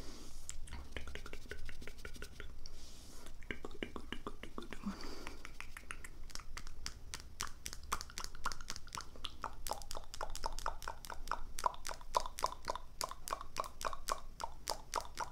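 ASMR mouth sounds: wet tongue and lip clicks, scattered at first, then a rapid run of several clicks a second from about six seconds in.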